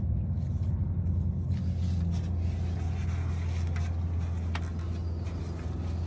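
Steady low rumble with a few faint clicks as the oil drain plug is threaded into the oil pan by hand.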